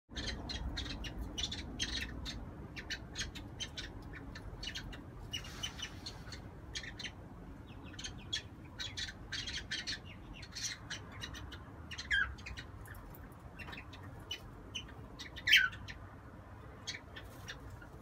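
Cockatiels chirping: a fast, irregular run of short, high chirps, with two louder calls falling in pitch in the second half.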